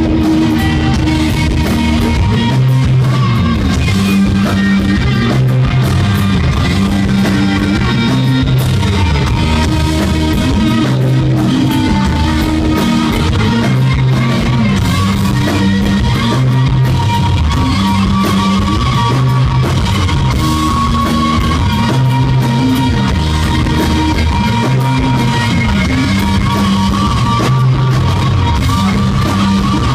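Rock band playing live and loud: distorted electric guitar, bass guitar and drum kit driving a repeating riff.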